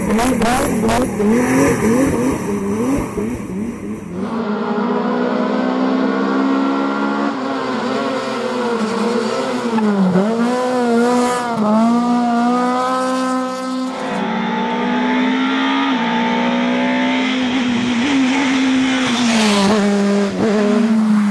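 Rally cars' engines revving hard, one car after another, with the pitch rising and falling through gear changes and lifts. In the first few seconds a BMW E30 slides sideways, its tyres squealing, then a Lada 2107 takes over about four seconds in. Another car's engine follows about fourteen seconds in.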